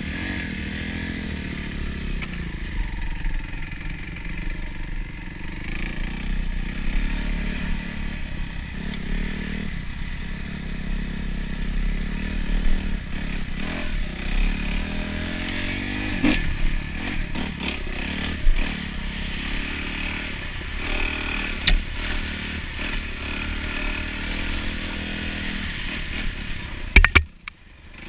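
Dirt bike engine running and revving up and down as it is ridden along a wooded single-track trail, with a few sharp knocks from the bike and rider over bumps, the loudest near the end.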